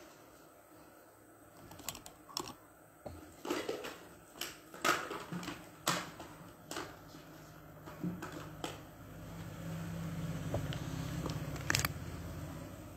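Irregular light clicks and taps of makeup tools and containers being handled close to the microphone. A low steady hum comes in during the last few seconds.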